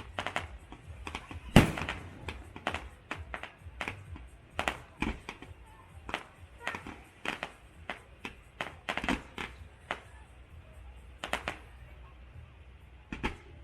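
Fireworks going off in an irregular string of sharp bangs, several a second, the loudest about a second and a half in, thinning to a few isolated bangs after about ten seconds.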